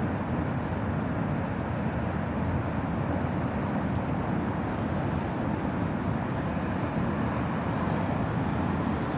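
Steady street ambience: a constant rumble of city traffic with no single vehicle standing out.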